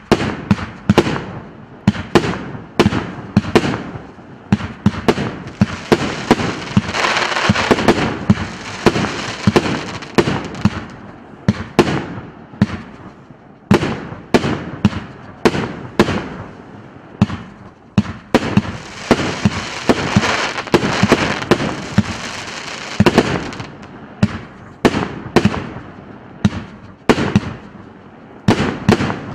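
A 49-shot, 1.5-inch consumer firework cake firing: a steady train of sharp shots and bursts, about two a second. Twice, about a fifth of the way in and again past the middle, the bangs run together under a dense hiss for several seconds.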